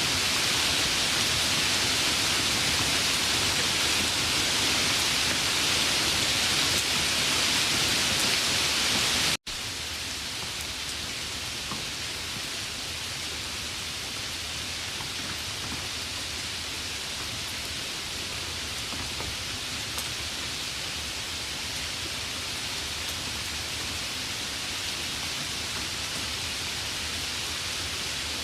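Steady rain falling. About nine seconds in it cuts out for an instant and comes back somewhat quieter, with a few faint drop ticks.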